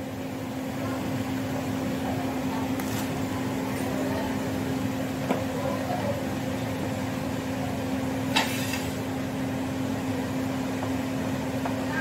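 Samsung inverter refrigerator's compressor running with a steady hum while it is charged with refrigerant gas. Two short noises, about three seconds in and near eight and a half seconds, stand out above the hum.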